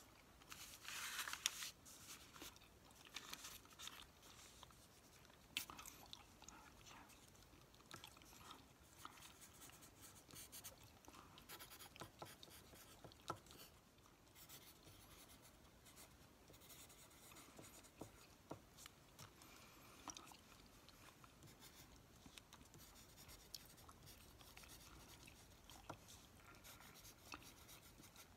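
Faint pen writing on a small slip of paper: soft scratching strokes with scattered small ticks, and a brief louder rustle of paper about a second in.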